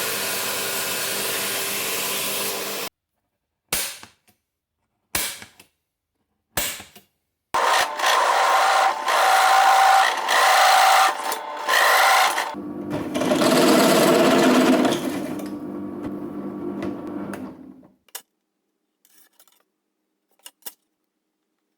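An electric power tool's motor running: a steady run of about three seconds, three short blips, then two longer runs whose pitch shifts. The last run fades away by about eighteen seconds in.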